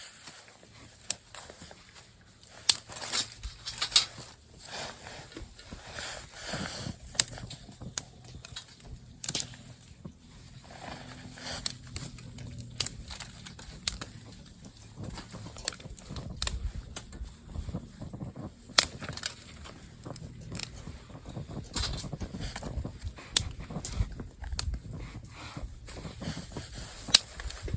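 Camping gear being handled: irregular sharp clicks and knocks over a soft rustle, with no steady rhythm.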